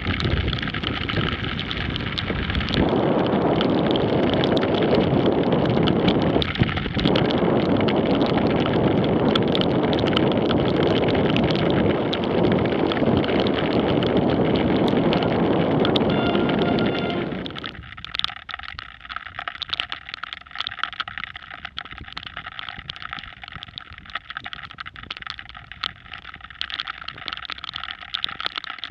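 Wind rushing over an action camera's microphone while cycling at speed in the rain. The rush cuts off about two-thirds of the way through, leaving a quieter bed with light, irregular ticking.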